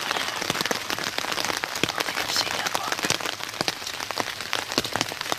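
Steady rain, with many separate drops ticking sharply on a surface.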